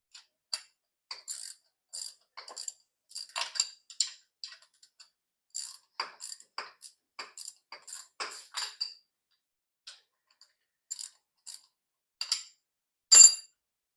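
Socket ratchet clicking in short, irregular runs as a starter mounting bolt is turned in. The clicks thin out a little past the middle, and there is one louder metal clink near the end.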